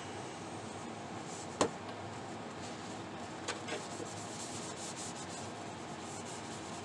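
Hands working over a plastic RC truck body, a steady rubbing sound, with one sharp click about one and a half seconds in and two lighter knocks a couple of seconds later.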